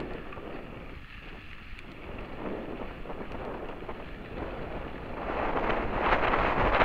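Wind buffeting the microphone of a camera on a moving mountain bike, mixed with the rumble of tyres on a dirt trail; it grows louder about five seconds in.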